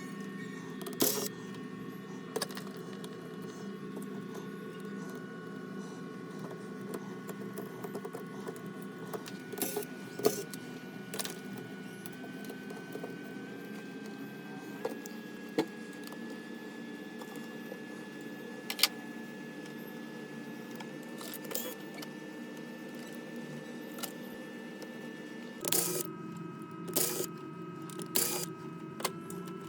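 Scattered sharp clicks and taps of hand tools and plastic laptop parts being handled during disassembly, more frequent near the end, over a steady low hum.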